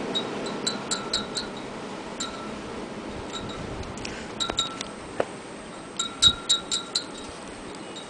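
Wind chime ringing in scattered clusters of strikes, busiest near the start and again about six to seven seconds in, over the steady rush of blizzard wind.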